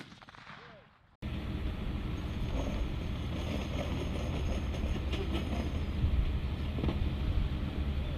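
The last echo of an M2 heavy machine-gun shot fades out in the first second. Then an armoured military truck drives along a dirt road at a distance: a steady, low engine sound.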